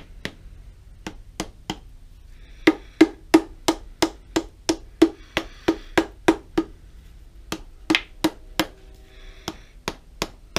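Hammer tapping a punch against a Pratt & Whitney Model B lathe apron casting: a steady run of sharp metallic taps, about three a second, with a few short pauses, many of the strikes ringing briefly. The punch is being driven to break loose a cover that is stuck at its seam.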